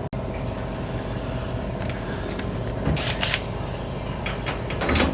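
A small electric motor running steadily with a hum, with a few short clicks and clatters about three seconds in and again near the end.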